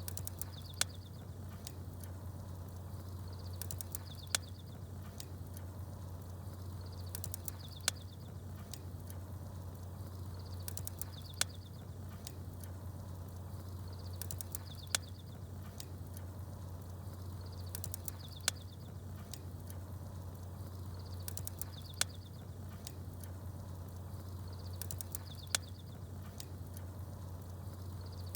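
Wood fire crackling with a sharp pop about every three and a half seconds over a steady low rumble, while small birds give short high chirps that recur on the same even spacing.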